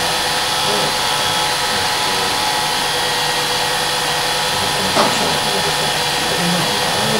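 8mm cine projector running, a steady mechanical whir, with a single click about five seconds in.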